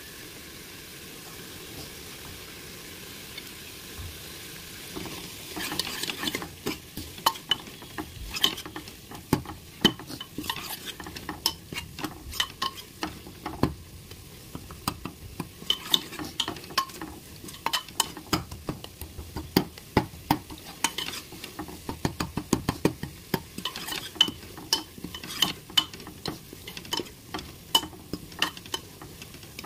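Onion-tomato masala sizzling in a pan while a metal ladle stirs it. From about five seconds in, the ladle clicks and scrapes against the pan over and over at an uneven pace.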